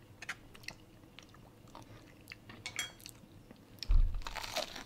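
Faint scattered clicks of handling, then about four seconds in a louder crunchy bite into the crisp batter of a piece of Popeyes fried chicken.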